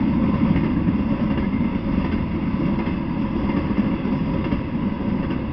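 Intermodal freight train of container cars rolling past: a steady low rumble of steel wheels on the rails.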